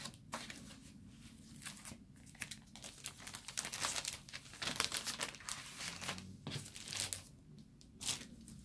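Sheets of patterned craft paper rustling and crinkling as they are slid across one another, lifted and turned over, in a string of short, irregular rustles.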